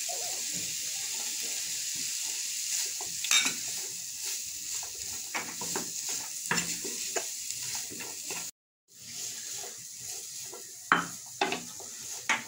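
Chicken, onion and green capsicum sizzling in a hot pan while a wooden spatula stirs them, scraping and tapping against the pan. The sound drops out completely for a moment about two-thirds through.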